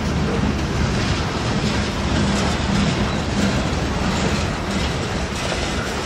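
Freight train of boxcars and covered hoppers rolling past: a steady rumble of steel wheels on the rails, with faint, irregular clacks.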